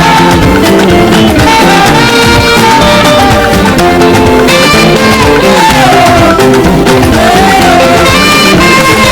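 Saxophone playing a melody of held and bending notes over a full band backing, loud and continuous.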